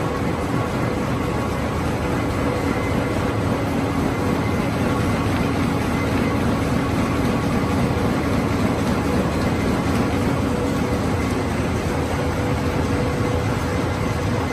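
Corrugated-carton flexo printer slotter die-cutter line with vacuum transfer, running in production: a steady mechanical rumble with a few faint, steady hums.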